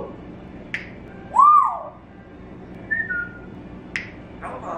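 Pet parrot whistling: a loud whistle that rises and falls about a second and a half in, then two short, steady whistled notes a little lower and higher, with a couple of sharp clicks around them.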